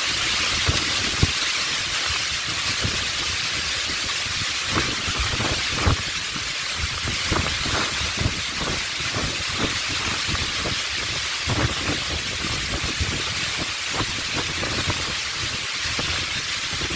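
Heavy rain pouring down steadily in a strong gusting wind. The rain is a dense, even hiss, and frequent short low rumbles of wind buffet the microphone.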